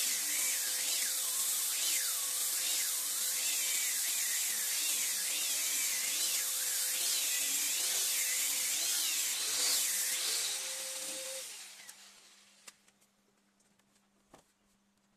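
Handheld electric disc sanders running on teak planks, their whine wavering up and down in pitch as they are pressed and moved over the wood. About eleven seconds in they are switched off and wind down, followed by a couple of faint knocks.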